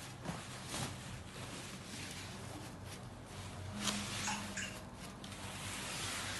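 Silk saree fabric rustling as it is handled and spread out, with a few brief louder rustles about four seconds in, over a steady low hum.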